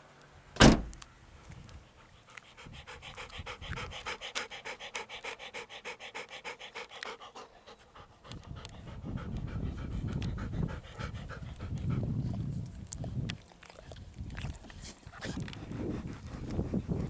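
Golden retriever panting quickly and evenly, after a sharp knock about half a second in that is the loudest sound. In the second half a low rumble covers the panting.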